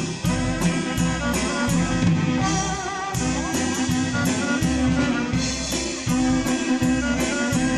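Waila band playing an instrumental dance tune with guitar and drum kit on a steady beat, a bass line below and a wavering melody line on top.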